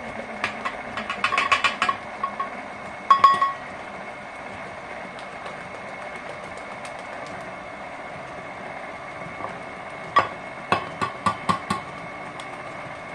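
KitchenAid stand mixer running steadily on its lowest speed, mixing batter. Several clusters of quick metallic clicks and clinks ring out over the motor's hum.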